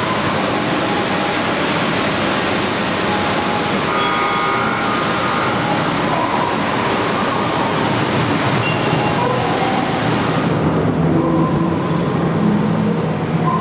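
Steady rushing background noise of a concrete underground tunnel, with a low hum joining in near the end.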